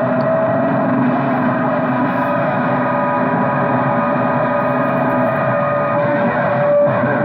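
Sideband radio receiver audio on an open channel: a steady hiss of band noise with several steady whistling tones from carriers beating against each other, one lasting throughout and two others dropping out about five and six seconds in.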